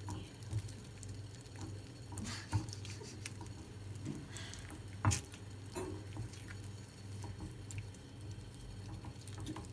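Wooden spoon stirring kuymak, a thick cornmeal and melted-cheese mix, in a ceramic dish: soft squishing and scraping as the stretchy cheese is worked in, with a few light knocks and a sharper one about halfway through, over a steady low hum.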